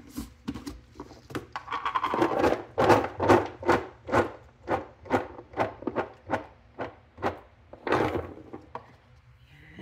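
Walnut halves shaken out of a clear plastic package onto a salad plate: a run of rustling, knocking shakes, about three a second, loudest in the middle and fading toward the end.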